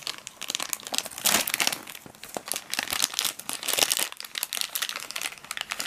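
Shiny plastic blind-bag packet crinkling and crackling as hands crumple and work it open, a dense, irregular run of sharp crackles.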